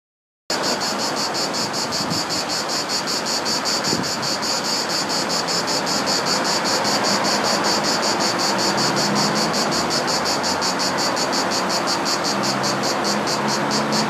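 A cicada singing a fast, even train of pulses, which the uploader thinks may be Cicada orni. Behind it runs a steady rush of background noise.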